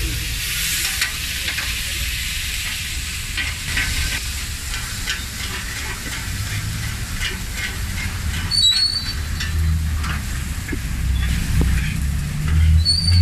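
Meat sizzling on a flat-top griddle while a metal spatula scrapes and taps across the griddle, chopping and turning the pieces. A low rumble builds in the second half.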